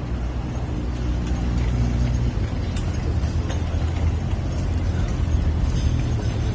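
A motor vehicle engine running with a steady low drone. It grows slightly louder over the few seconds.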